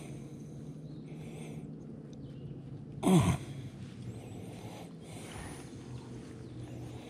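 One short, loud nonverbal vocal sound from a man, falling in pitch, about three seconds in, over a faint steady low hum.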